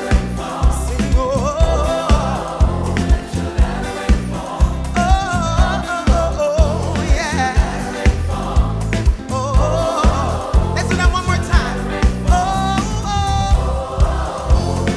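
Gospel band playing with a steady drum beat and heavy bass, while singers carry the melody in sliding, ornamented vocal runs.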